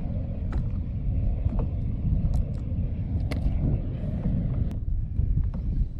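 Wind buffeting a small camera microphone over open water, a steady low rumble, with a few faint clicks scattered through it.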